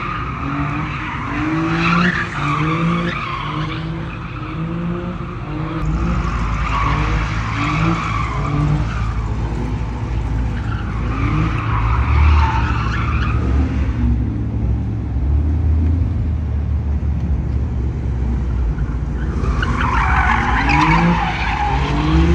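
Cars drifting and doing burnouts: tyres screeching in waves while engines rev hard in short, repeated rising pulses over a steady low rumble.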